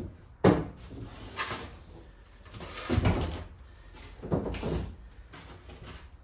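Several separate wooden knocks and thuds, the loudest about half a second in and again about three seconds in: a plywood floor board being handled and set down on the bus floor.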